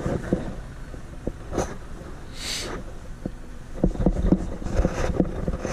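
Backhoe engine running steadily under load, with scattered clunks and knocks from the jacking work and one short hiss about two and a half seconds in.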